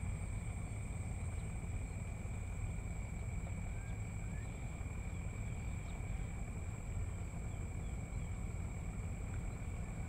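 A steady insect chorus, two unbroken shrill tones, one high and one higher, with a few faint chirps, over a steady low rumble.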